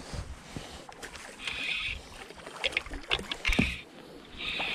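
Spinning reel being cranked in three short whirring bursts while a hooked largemouth bass is brought in to the bank, with low thumps of handling and wind among them.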